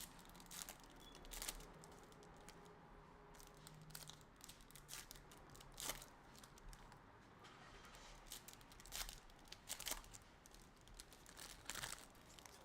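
Faint, irregular crinkling and tearing of trading-card pack wrappers being handled and opened, in short rustles every second or two.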